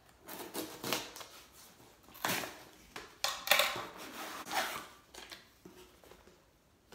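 Cardboard shipping box being opened by hand: its flaps scrape and rustle in a string of irregular bursts that die down towards the end.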